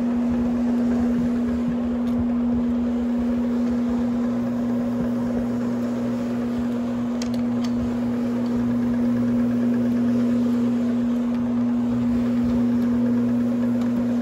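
Rotary floor machine running as it scrubs carpet, its motor giving a steady unbroken hum, with a second, lower hum joining about four seconds in.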